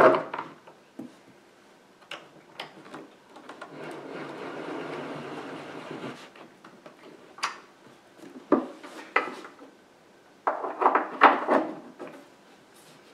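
Metal bolts being set and turned with an Allen key into the particleboard panels of an IKEA KALLAX shelf: scattered sharp clicks and taps, a steady rubbing stretch in the middle as the key turns, and a cluster of metal clinks near the end.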